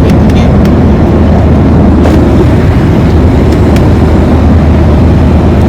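Airliner engines and rushing air heard from inside the passenger cabin during takeoff: a loud, steady, deep noise with no change in pitch.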